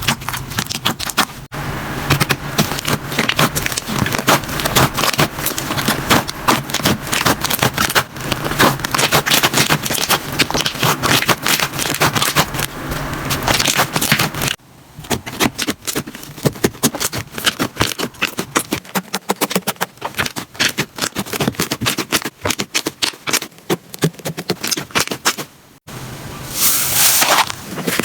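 Slime being squeezed, pressed and poked by hand, giving dense crackling and popping, with abrupt changes of texture about halfway through and again near the end as one slime gives way to another.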